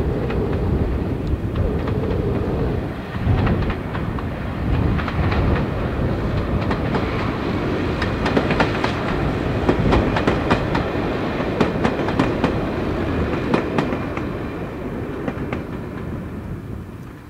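Three-car Class 117 heritage diesel multiple unit running past close by: the drone of its underfloor diesel engines under the rapid clickety-clack of wheels over rail joints, the clicks thickest about halfway through as it passes, then the sound fades away near the end.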